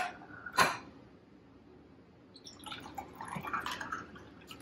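Two sharp clinks of glassware within the first second, then a drink being poured into a glass of ice for about two seconds.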